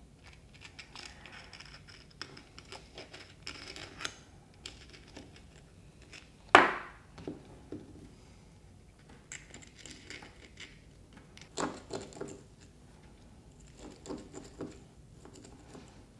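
An X-Acto knife cutting and scraping along sandpaper-like non-slip tape wrapped on a plastic roller, with light scratching and small clicks and taps. One sharp knock about six and a half seconds in.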